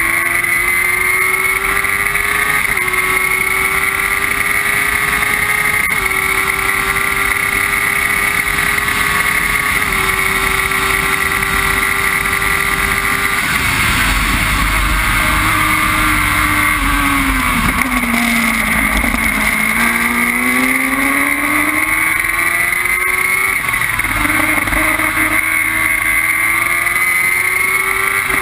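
Formula Jedi single-seater's motorcycle engine pulling hard up through the gears, with a quick upshift every few seconds. About halfway through it comes off the throttle, and the note falls through the downshifts. It then climbs again and upshifts twice more as the car accelerates away. Heavy wind rush is on the microphone throughout.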